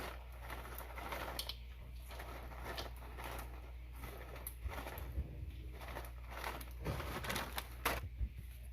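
Croutons being poured from a bag onto a salad: scattered light clicks and rustling, with a steady low hum underneath.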